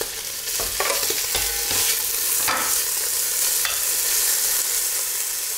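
Diced smoked pork belly (lardons) sizzling steadily as it fries in hot olive oil in an enamelled cast-iron casserole. A few short scrapes and clinks of metal tongs pushing and stirring the pieces come in the first few seconds.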